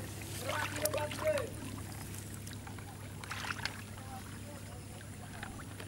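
Brief muffled talking, twice, over a steady low hum.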